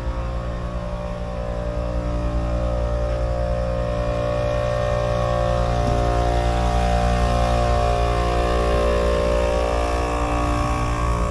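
Air compressor running steadily and loud: a constant mechanical hum at an unchanging pitch, growing slightly louder toward the end.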